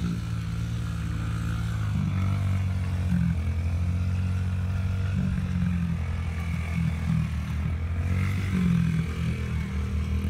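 Small kids' dirt bike engine running as the bike is ridden, its pitch and loudness rising and falling with the throttle.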